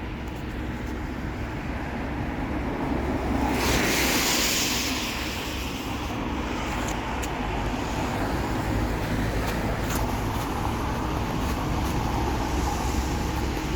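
Diesel bus engine running steadily at a stop, with a loud burst of air hiss lasting about a second and a half about three and a half seconds in.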